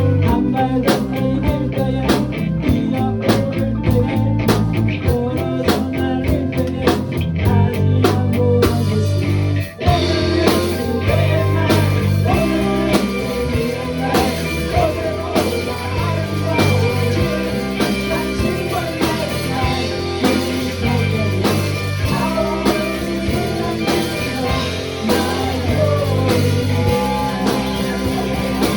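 A live rock band playing, with electric guitar, bass and drum kit. About ten seconds in the music briefly drops out, and it comes back with fuller cymbals.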